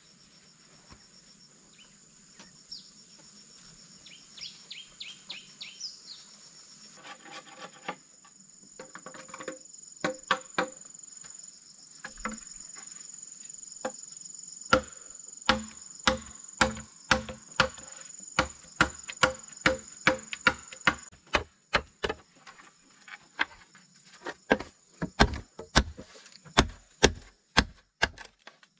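A machete chopping into a green bamboo pole, with sharp knocking strokes that start a few seconds in, come louder and more regularly later, and run at about two a second near the end. A steady high-pitched insect drone runs underneath and stops about two-thirds of the way through.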